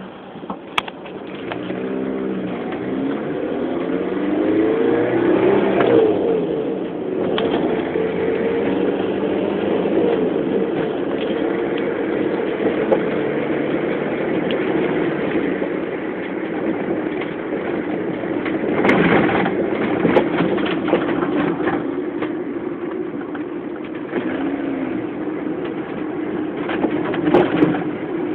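Car driving: the engine revs up, its pitch climbing over the first few seconds, then runs steadily under road noise, with a couple of brief louder rushes of noise later on.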